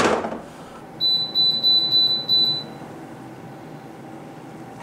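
A sharp knock, then a rapid run of high-pitched electronic beeps, about five a second for under two seconds.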